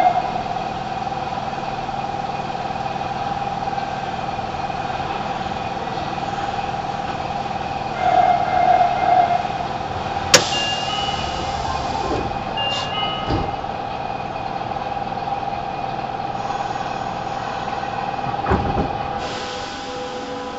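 Nagoya Municipal Subway 5050 series train standing at the platform, with a steady humming tone from the train and station. A sharp click comes about halfway through, then a thud and a short burst of air hiss near the end.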